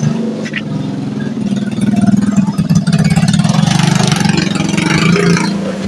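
An engine idling steadily, a low, even, rapid pulsing.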